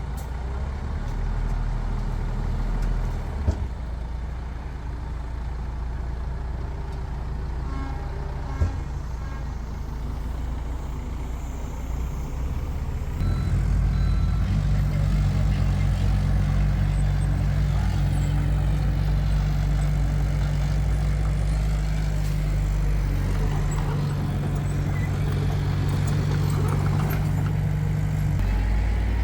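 Diesel engine of heavy earthmoving machinery running with a low drone, which grows louder and steadier about halfway through. Two sharp knocks sound in the first nine seconds.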